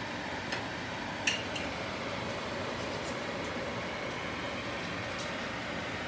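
Knife and fork clicking lightly against a plate a few times while cutting cooked steak into small pieces, the sharpest click a little over a second in, over a steady room hum.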